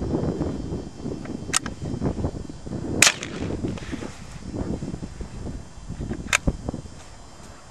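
Gunshots from a small-bore rifle, most likely a .22 bolt-action: three sharp cracks about a second and a half, three and six seconds in, the middle one the loudest.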